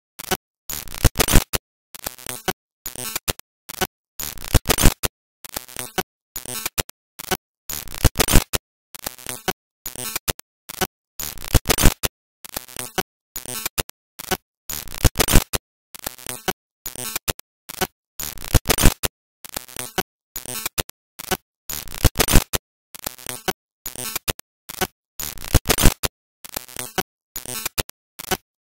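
Stuttering bursts of harsh, crackling noise broken by dead silences several times a second, with the loudest burst coming back about every three and a half seconds.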